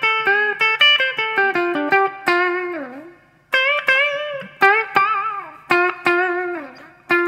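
Electric guitar playing a single-note lead solo in D pentatonic: quick picked notes with string bends that sink back down in pitch and a wavering vibrato, pausing briefly twice after a bend.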